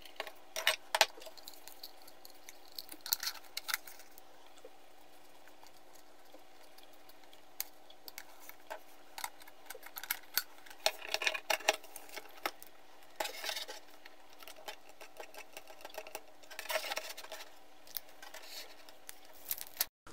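Scattered light clicks, taps and knocks of plastic and metal parts being handled and fitted together as a small microscope stand is assembled: a metal rail, bracket and plastic base. The clicks come singly and in short clusters.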